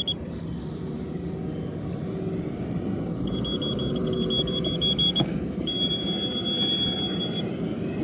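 Laser level receiver on a grade rod beeping quickly, about six short beeps a second, from about three seconds in, then a held solid tone for almost two seconds: the usual receiver signal that the rod has come onto grade. An excavator engine runs underneath throughout.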